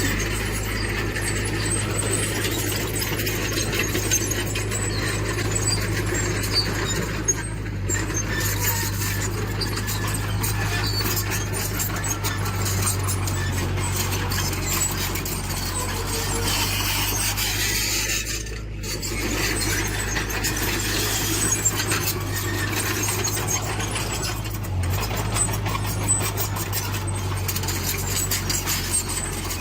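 Heavy earthmoving machine working: a steady diesel engine drone with a constant squeaking and clicking of metal parts over it.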